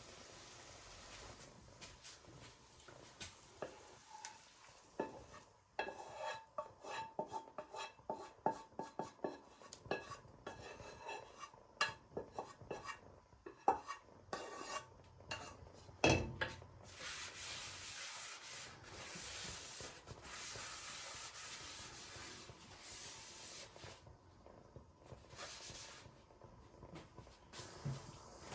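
A metal utensil stirring and clinking against cookware in quick runs of taps, with one sharp louder knock about sixteen seconds in, then a steady hiss for several seconds.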